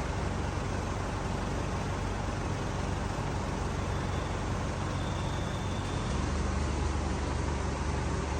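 Motor vehicle running with steady engine and road noise, the low rumble growing heavier about six seconds in.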